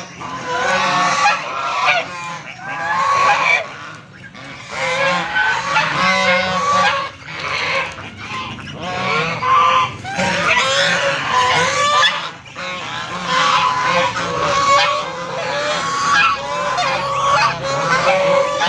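A flock of white domestic geese honking and calling without pause, many calls overlapping.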